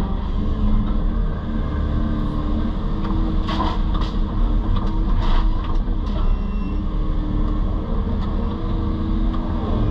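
Excavator's diesel engine running steadily, with a few short harsh noises over it about three and a half to five and a half seconds in.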